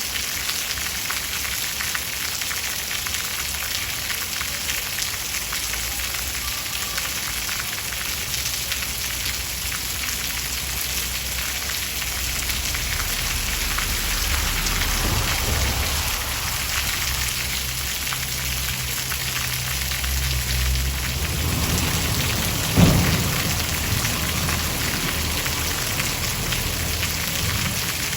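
Steady rain falling, with a low rumble of thunder building up partway through and a sharp thunderclap, the loudest moment, about four-fifths of the way in before rolling away.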